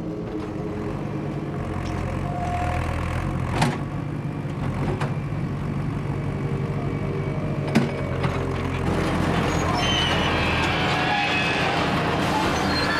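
Backhoe's diesel engine running with a steady low hum, with two sharp metallic clanks. From about nine seconds in it gets louder and noisier as the bucket digs into the earth.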